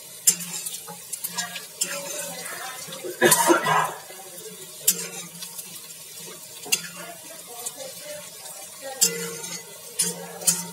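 A ladle stirring and scraping sliced onions and dried red chillies as they fry in an iron kadai, with scattered clinks of the ladle against the pan. There is a louder stretch of scraping about three seconds in.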